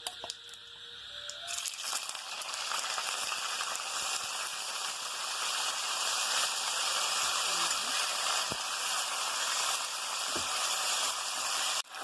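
Chicken pieces sizzling as they fry in hot oil, a steady hiss that starts about a second and a half in, with a few faint clicks. The sizzle cuts off sharply just before the end.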